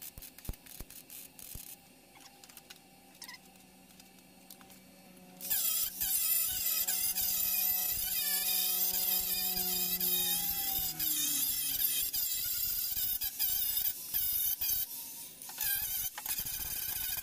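A short burst of MIG-welder crackle, then an angle grinder with an abrasive disc running. About five seconds in it bites into the steel panel, grinding fresh welds flush with a loud, continuous hiss. The grinding eases off briefly near fifteen seconds, then resumes.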